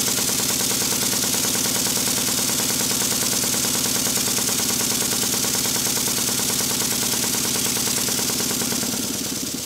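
Stuart model beam engine running on compressed air, its slide valve timing corrected: a fast, even beat of exhaust and clattering linkage over a steady hiss of air. The sound fades near the end.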